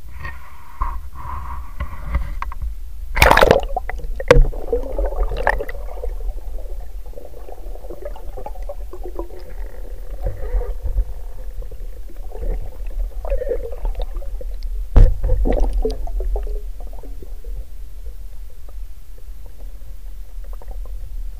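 Action camera plunged into river water with a splash about three seconds in, then muffled underwater gurgling and low rumbling, broken by a couple of sharp knocks.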